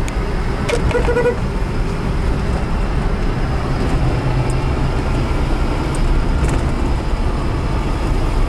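Inside the cabin of a Mitsubishi Kuda 1600 cc petrol MPV cruising at about 40 km/h, the engine runs steadily at around 2000 rpm over road and tyre noise. A brief horn toot sounds about a second in.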